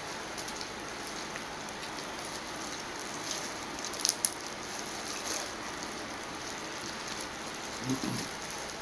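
Boiled crawfish being peeled by plastic-gloved hands: shells crackling and gloves rustling, with a few sharp crackles about four seconds in, over a steady hiss.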